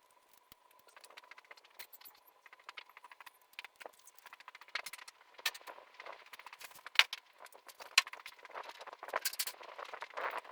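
Irregular clinks, clicks and rattles of tools and shop items being handled and moved about during a workshop cleanup, growing busier and louder toward the end, over a faint steady high tone.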